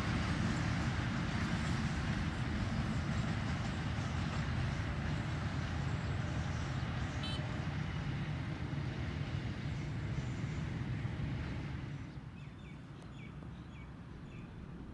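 Pair of Pakistan Railways diesel locomotives, an HBU-20 leading a dead RGE-24, running away down the line: a steady low engine rumble with wheel noise on the rails that slowly fades, then drops off sharply about twelve seconds in.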